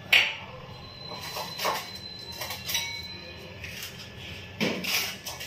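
Kitchen handling sounds around a stainless steel pan of whole spices. A sharp clack comes just after the start, then scattered light clicks and clinks, and a heavier knock about a second before the end.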